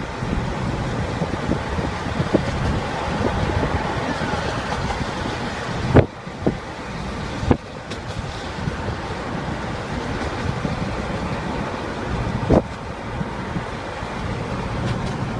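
Road noise heard inside a moving car's cabin: a steady rumble of tyres and engine, broken by three short, sharp thumps.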